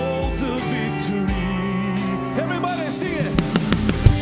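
Live worship band playing a song, with a male lead singer and backing vocals over guitars, keyboard and drums; a few sharp drum hits come in near the end.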